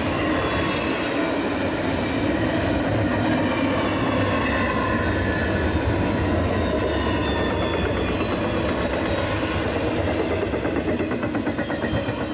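Double-stack container freight train rolling past: a steady rumble of wheels on rail, turning into a quick, rhythmic clatter near the end.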